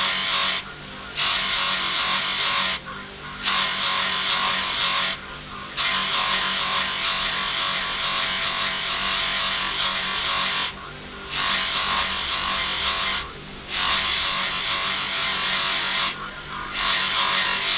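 Bench polishing motor spinning a cloth buffing wheel, a steady hum under a loud rushing hiss as an ocular prosthesis is held against the wheel. The hiss drops away briefly six times.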